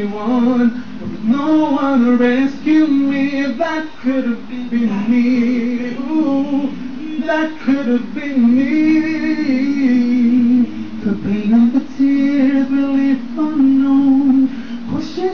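A man singing a gospel hymn into a handheld microphone, along with an a cappella vocal recording, with long held and gliding notes and no instruments.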